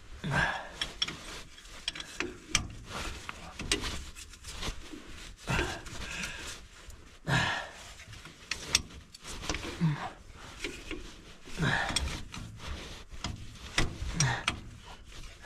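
Hands threading a hydraulic hose fitting onto a Cat 320C excavator's hydraulic block: scattered small metal clicks and rubbing, with a few brief low vocal sounds between them.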